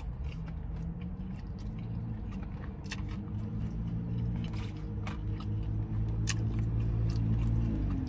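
Close-up chewing and biting of a chicken sandwich: wet mouth clicks and smacks scattered throughout, over a low steady hum.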